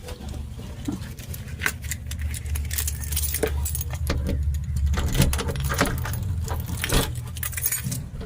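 A low vehicle rumble that swells toward the middle and eases off near the end, as of a car passing, with many irregular small clicks and rattles on top.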